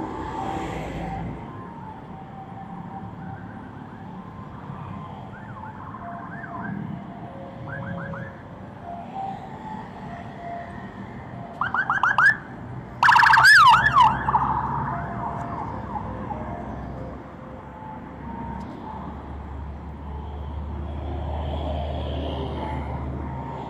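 City road traffic running steadily, broken about halfway through by two short bursts of a vehicle siren: a few quick rising yelps, then a louder rising-and-falling wail lasting about a second. A low traffic rumble swells near the end.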